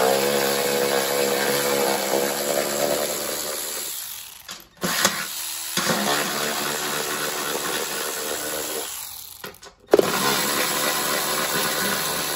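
Cordless electric ratchet running in three long runs of a few seconds each, with short pauses between them, spinning out the 10 mm bolts that hold the belt cover on a mower deck.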